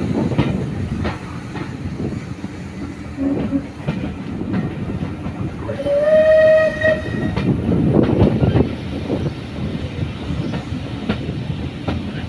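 Train running with a steady rumble, its carriage wheels clicking now and then over rail joints. About six seconds in, the steam locomotive 34028 Eddystone, a Bulleid West Country class Pacific, sounds its whistle: one steady tone lasting about a second.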